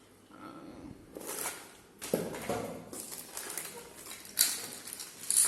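Handling noise from an aluminium pressure-cooker lid and its wrapping: irregular rustling, with a few sharp light knocks, the loudest about four seconds in and again near the end.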